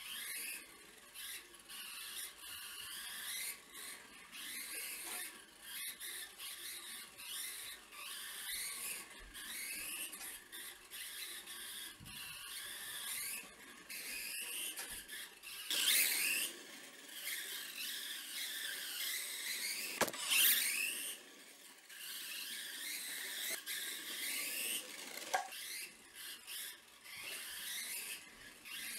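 Micro RC car's small electric motor and gears whining, the pitch rising and falling as the throttle is worked, loudest in two sweeps about two-thirds of the way through. A couple of sharp clicks stand out, one near the loudest sweep.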